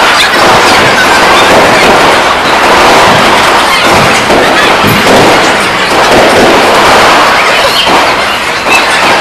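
Fireworks display at close range: a loud, continuous barrage of crackling bursts with repeated sharp bangs.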